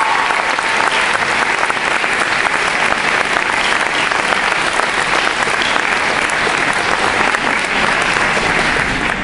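An audience applauding steadily in a large hall, dying away at the very end.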